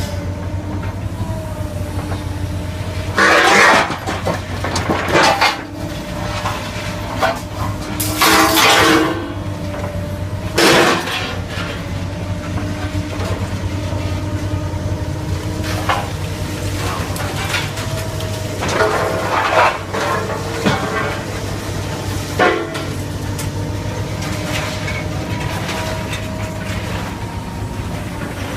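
A heavy machine running with a steady low hum and a whining tone. The hum is broken several times by short, loud, harsh crunching bursts.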